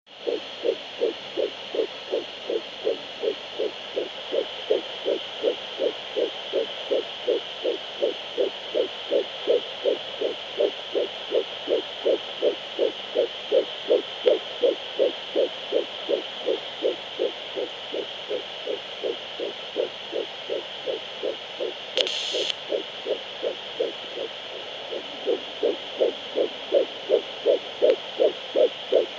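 Fetal heartbeat at 11 weeks 5 days, heard through a Doppler ultrasound monitor: fast, even pulses at about three a second over a steady hiss. A short high beep sounds about three quarters of the way through, and the beats fade for a moment soon after before returning.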